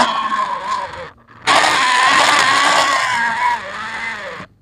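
Vehicle engine sound running with a wavering pitch, played for a toy truck being pushed along. It breaks off briefly about a second in, starts again, and cuts off suddenly shortly before the end.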